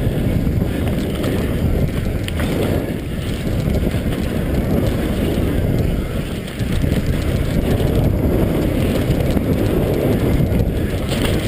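Mountain bike riding fast down a dirt singletrack: continuous rumble of wind on the helmet camera's microphone and tyres on the trail, with scattered clicks and rattles from the bike over bumps.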